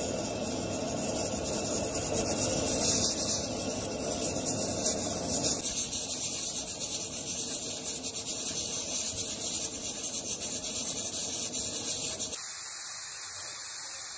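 Aluminium pressure cooker venting steam through its weighted valve: a steady hiss, with a lower rushing layer underneath that drops away about twelve seconds in.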